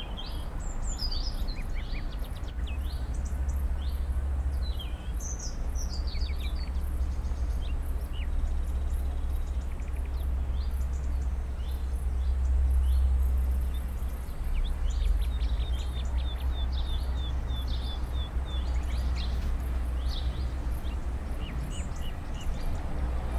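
Small birds chirping and calling in short notes, with a quick series of repeated chirps around the middle, over a steady low rumble.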